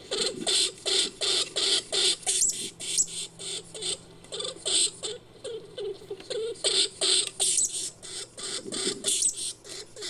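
Creature sound effect for a giant Norway lemming: rapid, rodent-like high squeaks and chitters, about three to four a second, with a short break in the middle and a few thin whistle-like glides.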